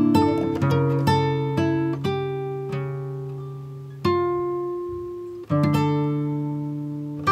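Background music of plucked acoustic guitar, its notes ringing and fading, with new chords struck about four and five and a half seconds in.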